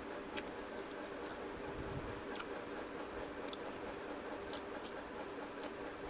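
Eating by hand from a steel plate: about five soft, wet clicks and squishes as fingers knead rice and curry and food is chewed, over a steady background hum.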